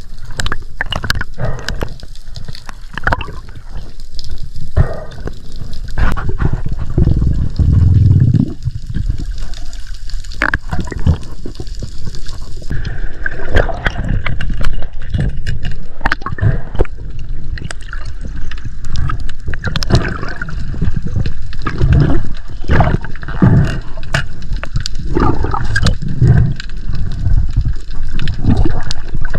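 Water sloshing and gurgling with many irregular knocks and splashes, loud throughout; about a third of the way in the sound turns duller as the highest part drops away.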